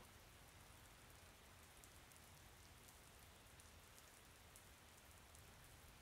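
Faint, steady rain ambience: a soft hiss of rainfall with light scattered drops.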